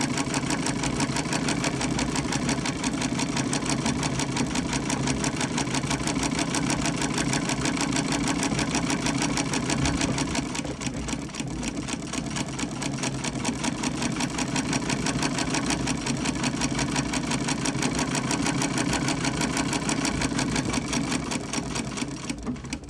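A c.1919 Davis vertical-feed treadle sewing machine running steadily through layers of denim, a fast even clatter of needle strokes. It eases off briefly about halfway, then picks up again and stops near the end.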